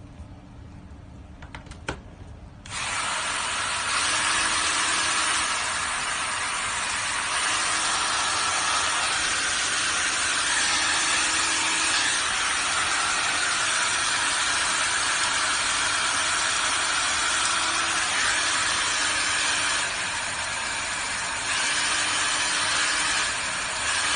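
Professional salon hair dryer switched on after a couple of clicks, then blowing a loud, steady rush of air. Its loudness steps up and down slightly a few times.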